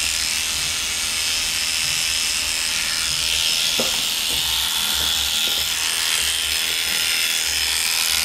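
Electric hair clippers running with a steady buzz, with a few faint clicks about four to five seconds in.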